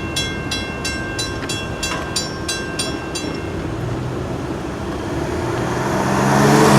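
WCH mechanical crossing bell ringing at about three strokes a second over the rumble of a passing train, then stopping about three seconds in. Near the end a road vehicle's engine grows louder.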